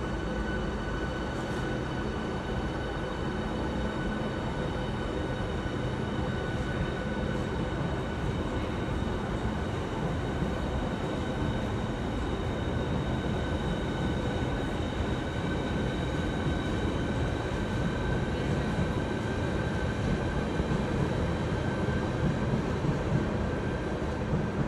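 Electric multiple-unit trains humming steadily at a station platform: a low rumble with several high, steady whining tones from the trains' electrical equipment.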